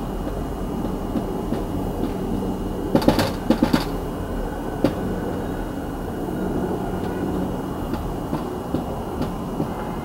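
Dry-erase marker writing on a whiteboard: short scratchy strokes and taps, the loudest a quick cluster about three seconds in, over a steady low rumble.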